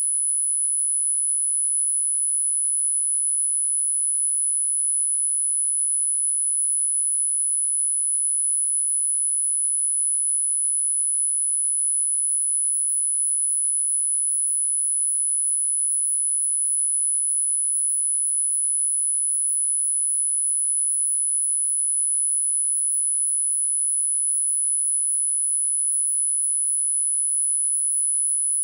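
A single steady, very high-pitched electronic sine tone, unchanging in pitch and level: a generated 'frequency' of subliminal listening audio.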